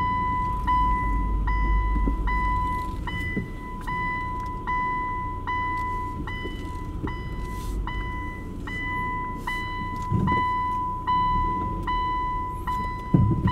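A repeating electronic beep: one steady high tone, each beep long with only a short gap before the next, a little faster than once a second, over a low vehicle rumble.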